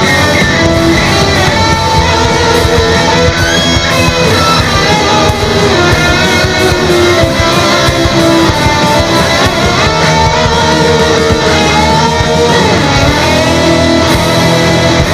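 Instrumental rock music: electric guitar playing a melodic line with pitch bends over strummed guitar chords.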